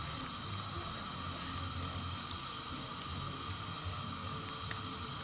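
Steady faint hiss from a gas stove burner heating a pan of oil, with a few faint ticks.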